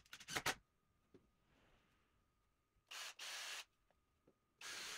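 Cordless drill run in short trigger bursts: a quick rattle of clicks just after the start, then two brief spells of the motor running, about three seconds in and again near the end.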